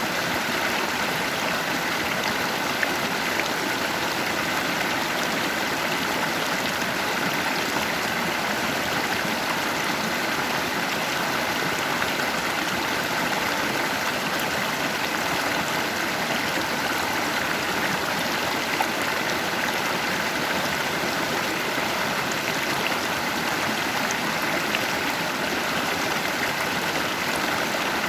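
Stream water rushing and splashing over stones, a steady even rush with small splashes throughout.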